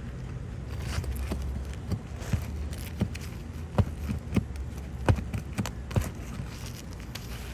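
Hand tool knocking against roofing nails and asphalt shingles: about a dozen irregular sharp knocks while nails are being worked out of the roof.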